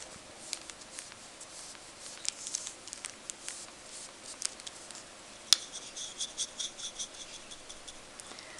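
Flat paintbrush dragging sticky watercolour across paper: faint scratchy, tacky strokes with small clicks. The paint is gummy enough to cling to the brush. One sharper click comes about halfway through, followed by a quick run of small ticks for a couple of seconds.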